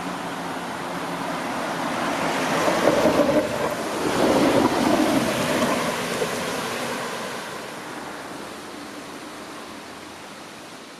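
A car driving over a paved multi-track level crossing: rushing tyre noise that swells to a peak a few seconds in, with rougher rumbling at its loudest, then fades away.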